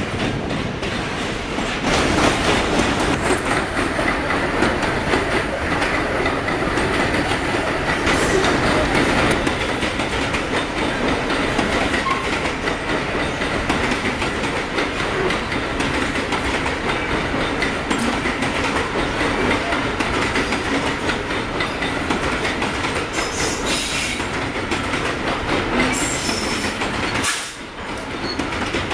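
Freight train of covered hopper wagons rolling past close by, steel wheels clattering over the rail joints in a continuous clickety-clack, with a faint wheel squeal at times.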